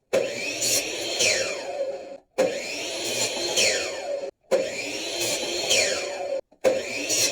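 Power tool running on pallet wood, steady and noisy, in runs of about two seconds that stop dead and start again three times.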